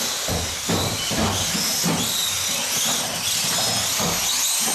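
Small electric 1/18-scale off-road RC cars racing, their motors giving high whines that rise and fall over a steady hiss.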